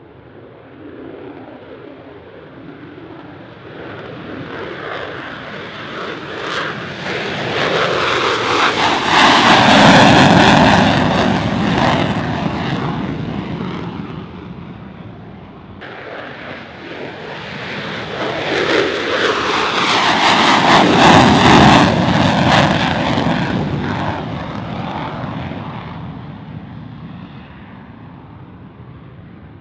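F-35A Lightning II's single Pratt & Whitney F135 jet engine in afterburner, heard as two separate passes. Each pass swells to very loud as the jet goes by, its pitch sweeping down, then fades away.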